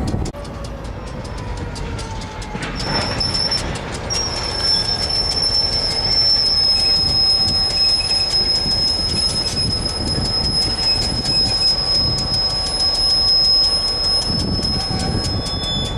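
A steady high-pitched squeal that starts about three seconds in and holds, over a low rumble with regular faint clicks.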